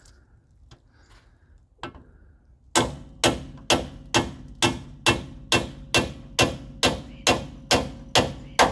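A hammer striking metal in steady, evenly spaced blows, about two a second, each with a short metallic ring, after a single blow. It is tapping a new wheel bearing part into place in a car's rear axle housing, until it seats.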